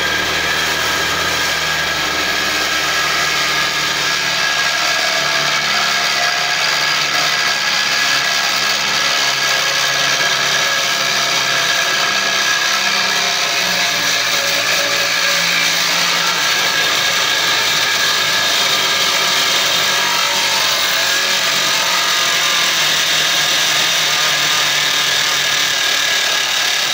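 Table saw running steadily at speed while a board is crosscut on a homemade crosscut sled.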